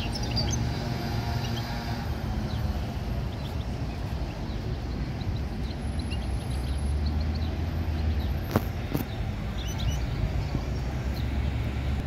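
A caged European goldfinch gives short, scattered chirps over a steady low rumble of traffic. A sharp click comes about eight and a half seconds in.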